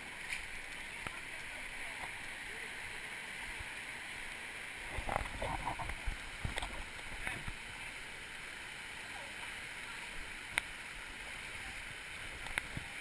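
Rushing river water, a steady hiss, with a few short knocks and rustles about halfway through and single sharp clicks near the end.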